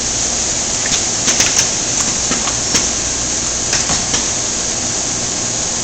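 A Koyo KC 500 centerless grinder runs steadily in automatic cycle. Over it come a scattering of sharp metallic clacks from the automation handling the ground camshaft, most of them in the first four seconds.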